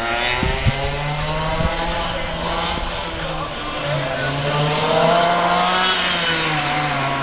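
Racing kart engines running on a circuit, several at once, their pitch rising and falling as the karts accelerate and slow. A few short knocks sound in the first two seconds.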